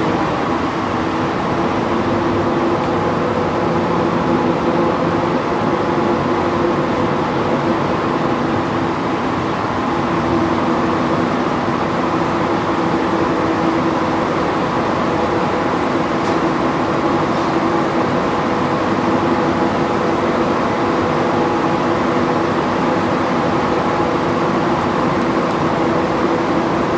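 Rubber-tyred Montréal Métro train running between stations, heard from inside the car: a steady rumble with several held tones over it.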